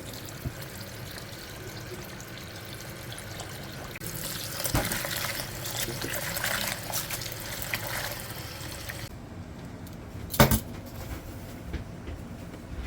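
Water running or being poured in a kitchen for about five seconds, with small clinks, followed by one sharp knock.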